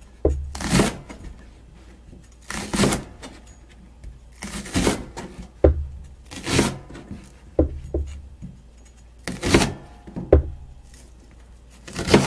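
Kitchen knife slicing through the white stalk of a Japanese long green onion (negi) on a cutting board: about ten separate cuts, each a short sharp stroke, coming roughly a second apart at an uneven pace.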